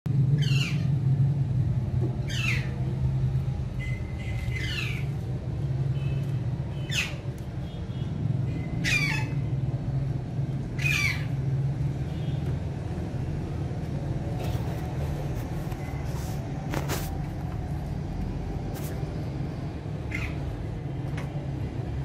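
Rose-ringed parakeet giving short, sharp calls that fall in pitch, about one every two seconds for the first half and fainter later, over a steady low rumble.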